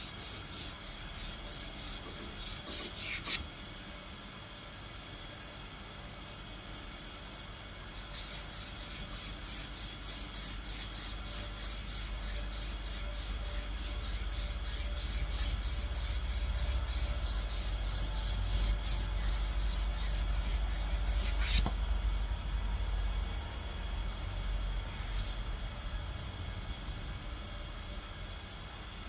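Rhythmic back-and-forth rasping strokes of hand abrading on metal, about two a second, as the edger shaft is worked clean after its bearing has been pulled. A short run at the start stops after about three seconds, and a longer run picks up again about eight seconds in and stops near twenty-one seconds.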